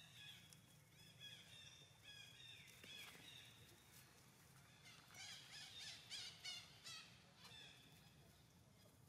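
Faint, high-pitched animal squeaks and chirps come again and again. They bunch into a rapid, louder flurry about five to six and a half seconds in, over a faint low steady hum.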